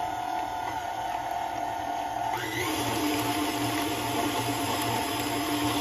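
KitchenAid stand mixer running steadily, its flat beater turning through thick cookie dough (creamed butter, brown sugar, eggs and vanilla) in a glass bowl. The motor's tone shifts slightly about two seconds in.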